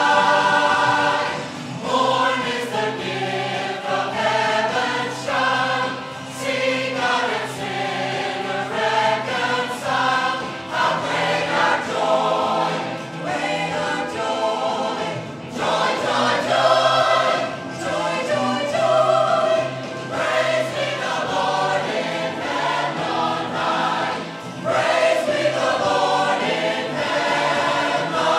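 Mixed church choir of men and women singing a Christmas song together, phrases of held chords with short breaks between them.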